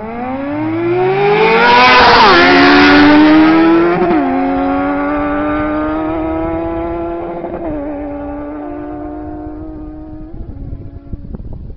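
Two sport motorcycles launching off a drag-race start line at full throttle. The engines rev up hard, then pull away through four upshifts, each a sudden drop in pitch, and fade steadily into the distance.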